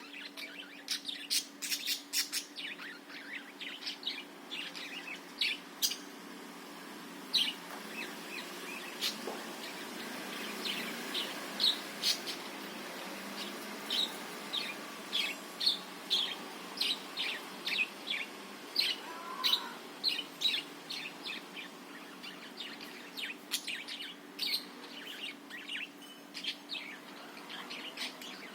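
Budgerigars (parakeets) chirping and chattering in quick, short high calls that run on without a break. A faint steady hum lies underneath.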